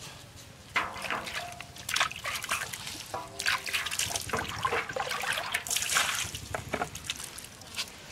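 Water splashing and trickling in a metal basin as a hand scoops and sloshes it, coming in irregular bursts.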